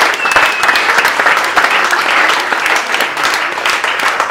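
Audience applauding with dense, steady clapping, and a brief high whistle-like tone about a quarter of a second in.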